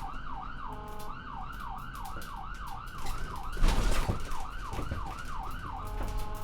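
Emergency-vehicle siren in its fast yelp mode, the pitch swooping up and down about two and a half times a second. It breaks briefly into a steady chord-like horn tone about a second in and again near the end. A loud burst of noise cuts across it a little past the middle.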